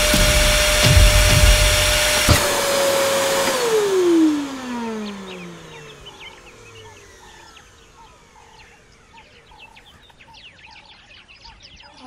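Canister vacuum cleaner motor running with a steady whine, a sharp click a little over two seconds in, then the motor winding down, its whine falling in pitch as it fades. Faint short chirps follow.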